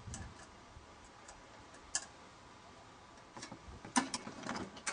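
Metal parts of a UHF grid aerial clicking and knocking as they are handled and taken apart: a few separate sharp clicks, then a busier run of knocks and rattles over the last second and a half, the sharpest about four seconds in.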